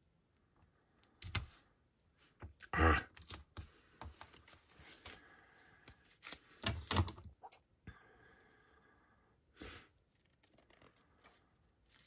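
Paper sack scraps being handled and folded: scattered rustles and light clicks a second or a few seconds apart.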